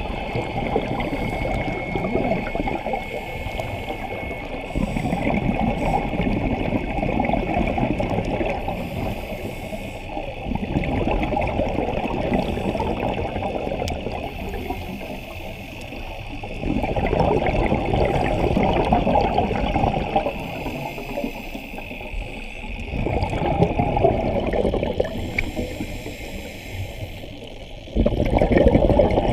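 Muffled underwater bubbling and rushing that swells and eases every few seconds, the rhythm of a scuba diver breathing out through the regulator. It jumps louder suddenly near the end.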